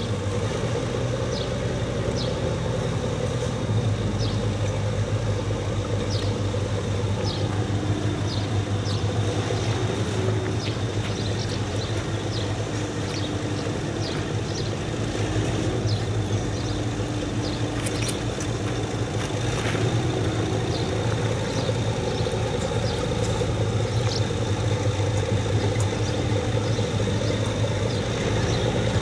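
X 2800 diesel railcar's engine running with a steady low drone as the railcar rolls slowly in, growing a little louder near the end as it comes closer. Light high clicks run through it.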